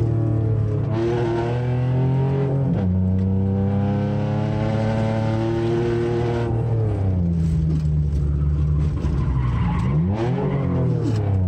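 Car engine accelerating and easing off through an autocross cone course, its pitch climbing, dropping sharply about three seconds in, climbing again, then falling and rising again near the end.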